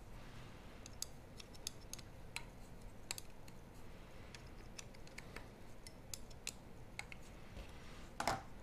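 Scattered light clicks and taps of small metal screws and a hex screwdriver being picked up and handled, with the carbon-fibre frame knocking lightly in the hands. A somewhat louder click comes near the end.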